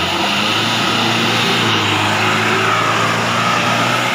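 Toyota Land Cruiser 4x4 engine held at high revs under heavy load as the vehicle claws its way up out of a deep muddy rut, running steadily.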